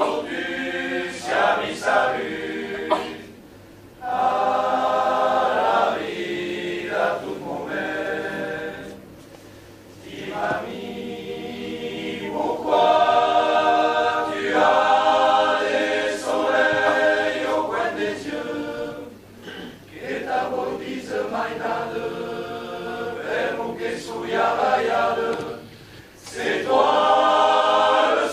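Men's choir singing a cappella in harmony, the phrases separated by brief pauses.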